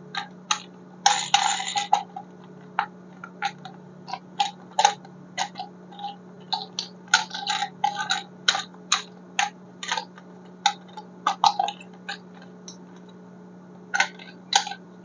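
Irregular clicks, taps and short rustles of small hard plastic objects being handled, a few a second, over a faint steady low hum.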